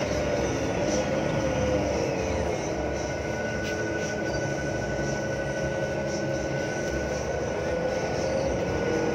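Daewoo BH115H city bus heard from inside while driving, its Voith automatic transmission giving off a loud, steady high whine over the engine's rumble. A lower tone sinks in the first few seconds and climbs again near the end as the bus slows and picks up speed.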